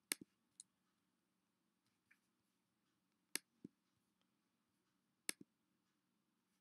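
Sparse clicks of a computer's pointing device: a loud sharp click near the start, another a little past three seconds and another a little past five seconds, each followed quickly by a softer one, with a couple of faint clicks between. Otherwise near silence.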